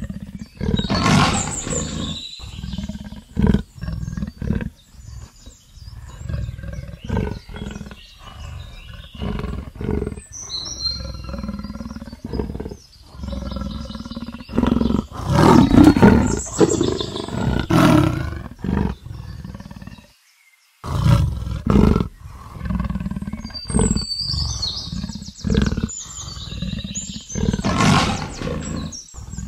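Leopard calling in a long series of repeated roars and growls, with a brief break about twenty seconds in. Short high chirps come in twice, about ten seconds in and near the end.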